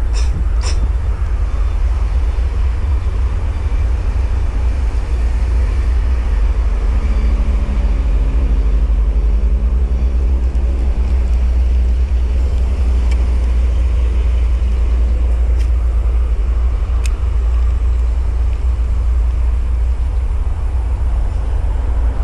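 Steady low rumble of wind on the microphone. A distant engine drones for several seconds from about seven seconds in, and there are a few sharp clicks near the start and again later.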